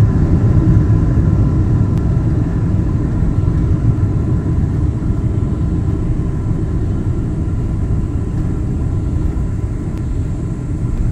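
Cabin noise of a Boeing 777-300ER rolling on the runway just after landing: a heavy, steady rumble of wheels and engines that eases slowly as the aircraft slows, with faint engine tones dying away in the first few seconds.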